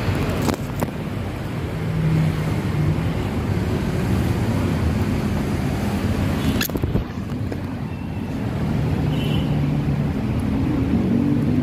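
Street traffic: vehicle engines running and passing, a low hum that swells twice, with wind rumbling on the microphone. A sharp click about two-thirds of the way in.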